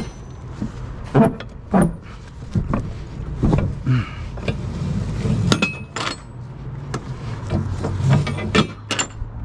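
Metal clanks and knocks from the lock-rod handles and latches of a refrigerated trailer's rear swing doors as they are unlatched, over a steady low engine hum.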